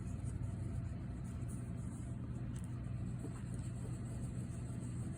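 A steady low hum, unchanging throughout, over faint background noise.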